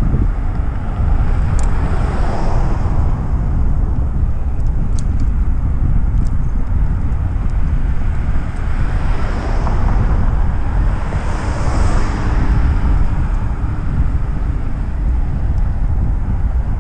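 Heavy wind rumble on the microphone of a moving rider, with the rush of passing cars swelling twice, a couple of seconds in and again around ten to twelve seconds in. A few light ticks come early.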